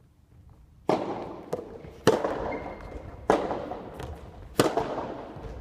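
Soft tennis rally: a rubber soft-tennis ball struck by rackets four times, about a second and a quarter apart, each hit a sharp pop that rings on in the gymnasium hall. A lighter tick comes between the first two hits.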